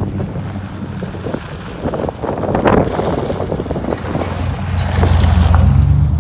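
A vehicle's low engine hum and road noise with wind buffeting the microphone. The engine hum grows louder about five seconds in.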